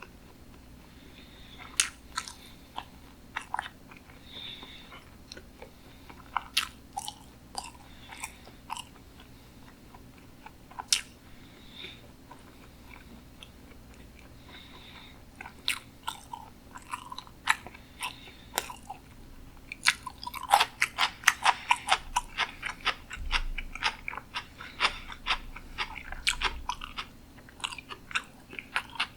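Close-miked chewing of sushi: scattered wet mouth clicks and smacks, becoming quick and dense about two-thirds of the way through.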